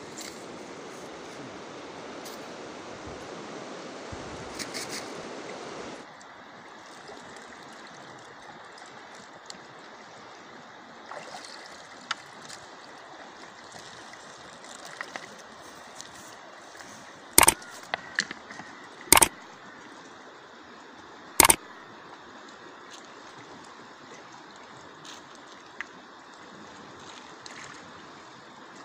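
Steady rush of a river flowing over stones, louder for the first few seconds. Three sharp knocks come a couple of seconds apart past the middle and are the loudest sounds.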